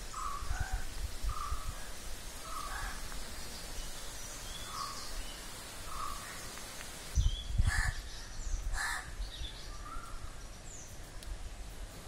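Crows cawing repeatedly in short calls less than a second apart, with smaller birds chirping higher and fainter. A couple of louder thumps come a little past the middle.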